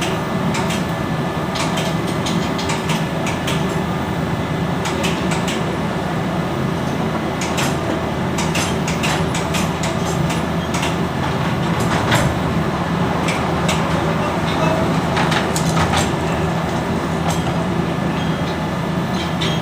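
Steady loud machinery drone with scattered metallic clicks and knocks of hand tools on turbocharger parts.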